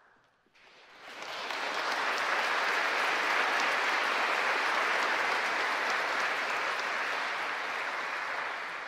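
Congregation applauding: the clapping builds about a second in, holds steady, and begins to fade near the end.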